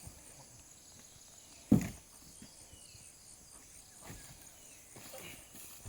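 A single heavy thud of wood being struck about two seconds in, followed by a few fainter knocks near the end.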